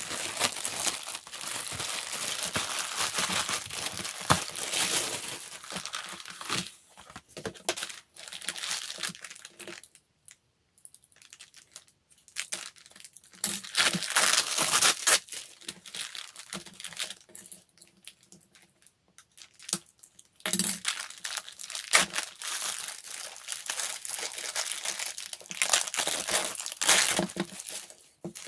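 Clear plastic wrapping crinkling and rustling in bursts as it is pulled off a tote bag's handles, with two short lulls.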